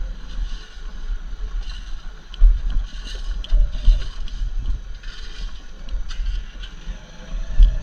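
Motorcycle ridden slowly over a rough off-road track, heard mostly as gusty wind rumble on the microphone, loudest about two and a half seconds in, near four seconds and near the end, with scattered small clicks and rattles.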